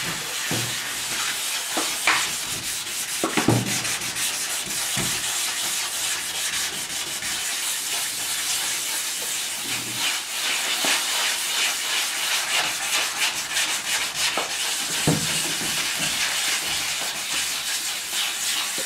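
Hand wet-sanding of primer on a car body panel with 600-grit sandpaper on a block, rubbed in circles: a steady scratchy hiss of abrasive paper over the wet surface, with a few soft knocks scattered through.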